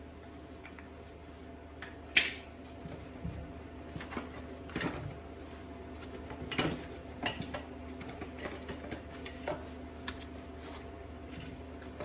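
Scattered metal clicks and clinks of disc brake pads and their steel shims being handled and fitted together, the sharpest about two seconds in, over a steady low hum.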